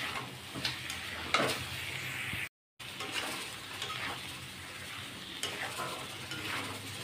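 Chicken pieces and tomatoes sizzling on low flame in a metal kadai, cooked dry without water, while a metal spatula stirs and scrapes through them in short strokes every second or so. The sound drops out briefly about two and a half seconds in.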